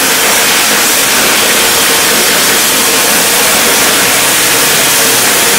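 Steady loud hiss with a faint steady tone underneath.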